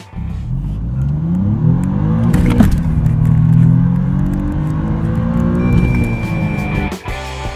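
Alfa Romeo Giulia Quadrifoglio's 2.9-litre twin-turbo V6 under full-throttle acceleration, heard from the cabin: the revs climb quickly in first gear, a sharp crack comes at the upshift about two and a half seconds in, then the revs climb again in second gear toward the redline. A steady high beep sounds briefly near the end, and the engine sound cuts off about seven seconds in.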